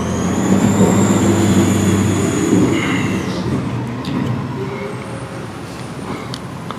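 Garbage truck running, its engine pitched low with a high squeal over it that holds for about three seconds and then stops, after which the truck noise eases off.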